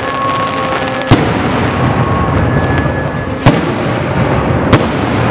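Aerial fireworks display: a dense, continuous crackle of bursting shells with three sharp bangs, about a second in, past the middle and near the end.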